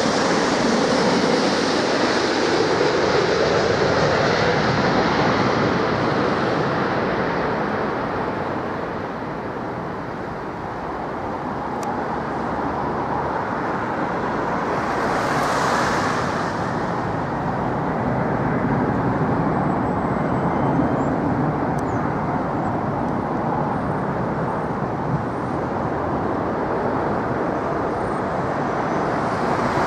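Four-engined Airbus A380 jet engines passing low overhead on final approach, the engine tone falling in pitch as it goes by, followed by a steady jet rumble that dips and then swells again about halfway through.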